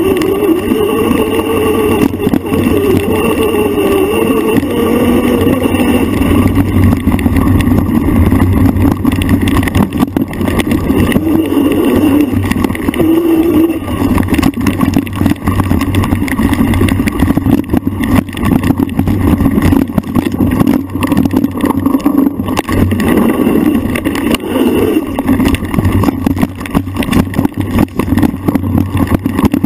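Off-road bike's motor running as it is ridden fast over a rough bush single-track, its pitch wavering up and down with the throttle, over frequent knocks and rattles from the bumps.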